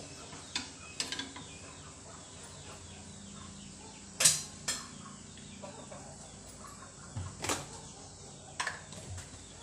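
Chickens clucking and small birds chirping in the background, with a few sharp knocks; the loudest knocks come about four and seven and a half seconds in.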